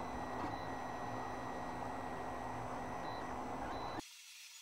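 Anet ET4 3D printer running a print: steady fan and stepper-motor noise with thin whining tones that come and go as the print head moves. Near the end it cuts off suddenly to a faint hiss.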